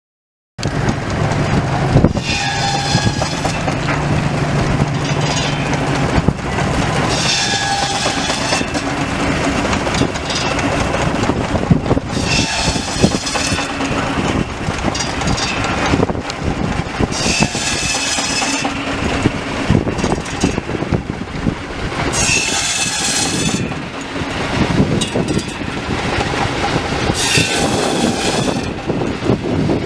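Antique shingle mill's large circular saw cutting cedar shingles: the mill runs steadily, with a high whine as the blade cuts through a block about every five seconds, six cuts in all.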